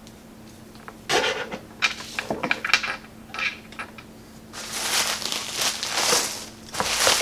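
A few sharp clicks and knocks of small objects handled on a desk, then plastic bubble wrap crinkling and rustling loudly from about halfway through as a wrapped package is handled.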